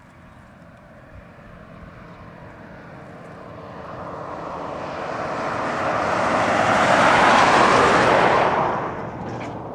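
A vehicle approaching and passing on the road: tyre and engine noise swells over several seconds, is loudest near the end, then falls away quickly.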